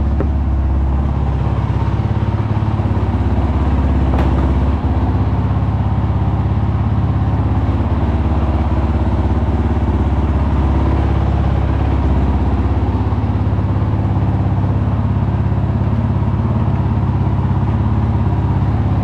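Honda CRF450L's single-cylinder four-stroke engine idling steadily, warming up the oil before it is drained for an oil change.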